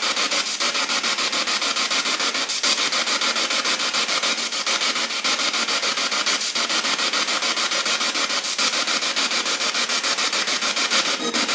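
Hissing static played through a JBL portable speaker, steady and loud, pulsing rapidly and evenly, with a brief dip about every two seconds.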